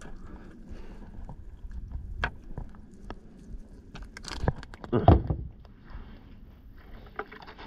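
Small clicks, knocks and rustles of handling a live bluegill, hook and landing net in an aluminium boat, then a brief swish and a louder thump about four to five seconds in as the baited rig is cast.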